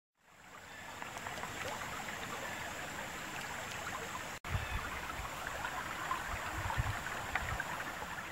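Shallow, rocky creek running and babbling over stones, a steady rushing of water that fades in. After a brief break about four seconds in, it carries on with a few low rumbles underneath.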